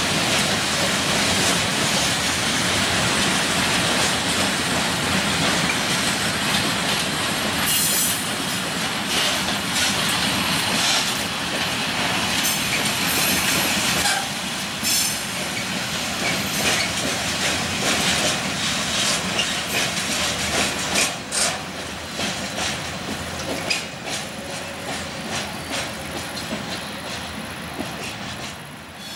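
Freight train of open wagons and log-laden stake wagons rolling past, its wheels clattering over the rail joints with high screeching, and a run of sharp clanks from about eight seconds in. The noise eases off near the end.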